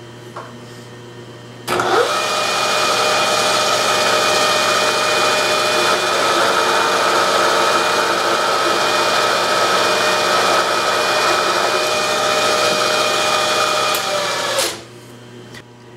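Bridgeport milling machine spindle switched on about two seconds in and running steadily with a whine while a countersink is fed down to the quill depth stop to cut a screw-head seat in the hole. It is switched off and spins down near the end.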